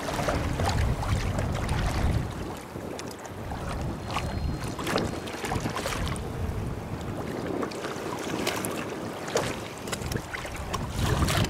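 Wind buffeting the microphone over choppy open water, heaviest in the first two seconds, with small waves lapping and slapping against a kayak hull.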